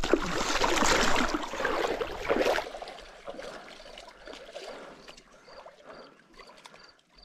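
Shallow river water splashing and churning loudly as a large sturgeon thrashes at the water's edge while it is landed. About two and a half seconds in the splashing drops away to faint water sounds with a few small clicks.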